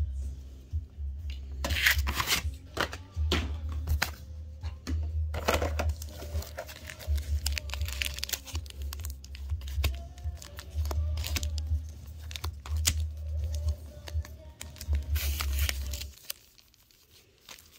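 Foil wrapper of a Pokémon Fusion Strike booster pack crinkling and tearing open in a few short rips, over background music with a deep pulsing bass that cuts out near the end.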